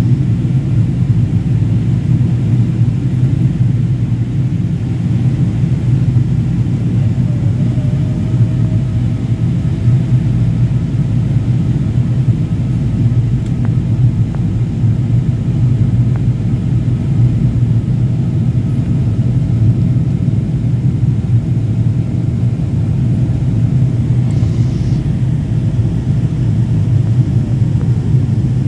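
Cabin noise inside a Boeing 777-200ER on its descent: a steady low rumble of airflow and its Rolls-Royce Trent 892 engines. A faint thin whine rides on top, stepping up in pitch about a third of the way in and dropping away near the end.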